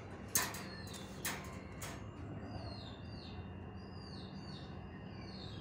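A small bird chirping over and over, a run of short, quick chirps that each fall in pitch. A few sharp clicks come in the first two seconds, over a low steady hum.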